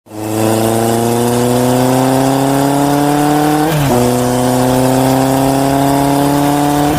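An engine-like drone rising slowly in pitch, dropping back sharply about four seconds in and again near the end, like a vehicle accelerating and shifting up through the gears.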